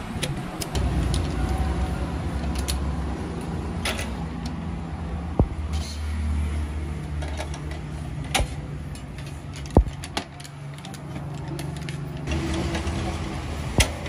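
Sharp clicks and light clinks from a badminton-racket stringing machine's metal clamps as string is threaded and pulled through the frame, four standing out clearly. Under them runs a low engine rumble that swells and fades.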